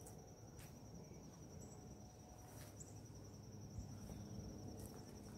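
Faint steady cricket trill at one high pitch, with a few soft clicks of scissors snipping plastic ties.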